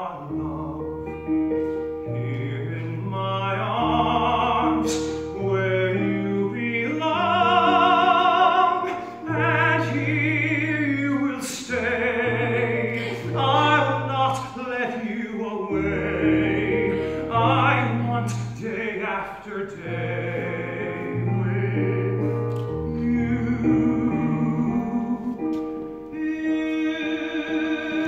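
A singer with strong vibrato sings a slow, sustained ballad melody in a legit musical-theatre voice over steady piano accompaniment.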